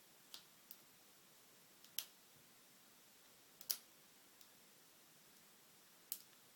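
Sparse, sharp metallic clicks from a lock pick and tension wrench working the pins of an American Lock 1105 padlock during single pin picking. There are about six clicks, the loudest about two seconds in, near four seconds, and near the end, over near silence.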